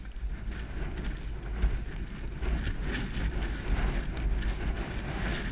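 A pony's hoofbeats on a soft grass and dirt track, heard from the saddle, with wind rumbling on the helmet camera's microphone; the sound grows louder after the first second or two.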